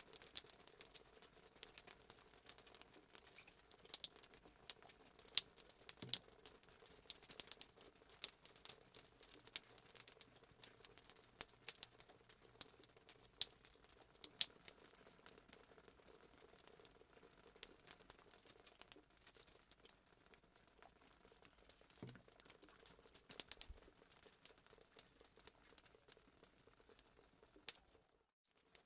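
Fireplace sound effect: a wood fire crackling and popping in irregular sharp snaps over a faint steady hum. The crackling cuts out briefly near the end, then resumes.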